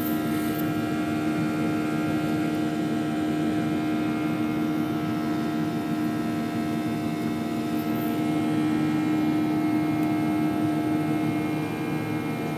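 Cabin noise of a Boeing 737 climbing after takeoff: the CFM56 turbofan engines give a steady drone with a hum of several steady tones over rushing air.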